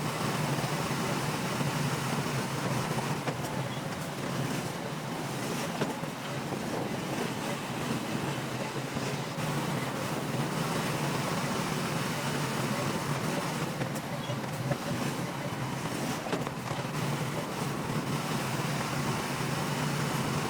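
Bulldozer's diesel engine running steadily at work.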